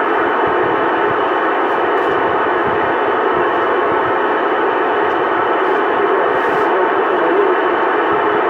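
Steady, loud static hissing from a CB radio's speaker, with no voice on the channel.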